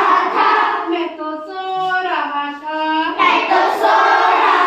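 A group of children's voices singing together in chorus, holding notes that slide up and down in pitch.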